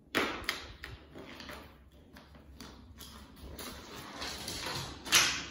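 A small plastic bottle batted by a kitten, knocking and skittering across a laminate floor. There is a sharp knock just after the start, then a run of lighter clatters, and the loudest hit comes near the end.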